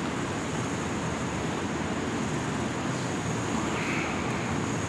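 Steady background noise, an even hiss and rumble with no distinct events: room tone with the steady noise of a fan or air conditioning.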